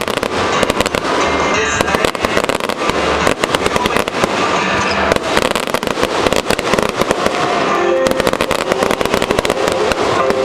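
Professional fireworks display at full barrage: a dense, rapid string of sharp reports and crackling from many shells and comets going off at once, with no let-up.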